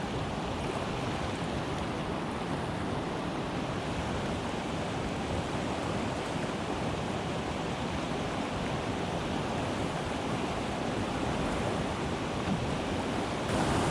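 Steady rush of whitewater from river rapids and falls, growing a little louder shortly before the end.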